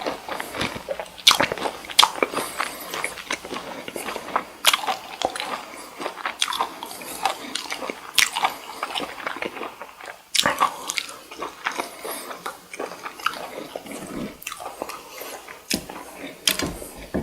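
Close-miked eating of cocktail shrimp: repeated bites and steady chewing with wet mouth clicks and smacks at an uneven pace.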